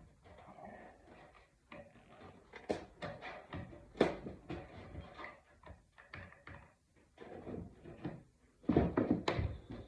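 Irregular taps, clicks and rustling as screen spline is pressed into the channel of a screen door frame over metal screening, with a cluster of louder knocks near the end.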